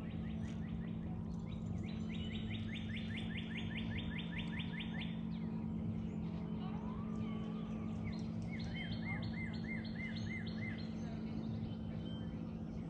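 Songbird calling from the shoreline: runs of quick, evenly repeated notes, about five a second, lasting two to three seconds each, three times, with a short rising call in between. A steady low hum runs underneath.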